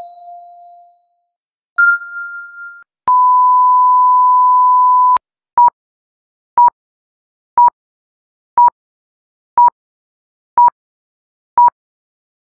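Electronic beep sound effects: two short ringing dings, the second higher, then a long steady censor bleep of about two seconds that cuts off sharply, followed by short beeps once a second, about nine of them.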